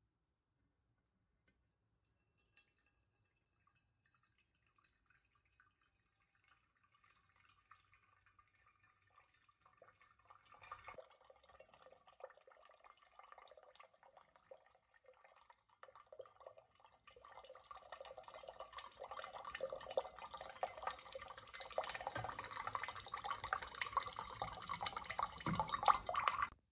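Water in a kitchen: faint dripping and crackling that builds up steadily from about ten seconds in, then stops abruptly.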